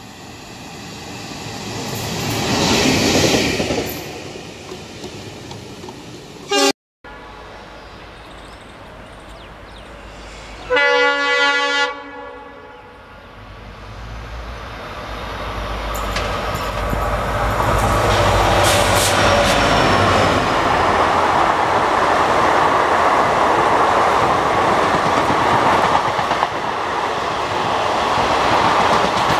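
A train's running noise swells and fades in the first few seconds. After a short cut, an Indian Railways WDP4D diesel locomotive sounds its horn once for about a second, then passes with a deep engine rumble, and its passenger coaches roll by with steady wheel-and-rail noise.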